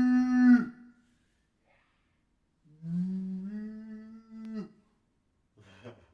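A man's voice imitating a cow, mooing twice: a long held moo that ends about half a second in, then another moo about two seconds long that rises at the start and then holds steady.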